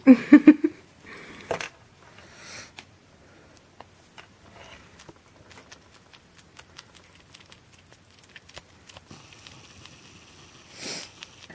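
A short burst of a person's voice at the very start, then a sugar glider chewing a mealworm: faint, irregular small clicks and crunches, with a brief louder noise near the end.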